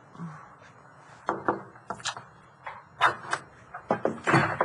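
A wooden door being worked: a run of about eight sharp knocks and clicks at uneven spacing, beginning about a second in, the last a longer rattle as the door comes open.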